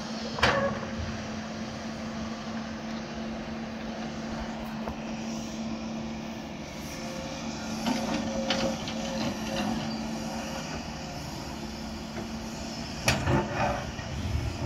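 Doosan DX140 wheeled excavator's diesel engine running steadily under digging load, with a steady hum. Sharp metal knocks from the bucket about half a second in and again near the end, and a rattle of soil and stones dropping into the dump truck's steel bed about eight seconds in.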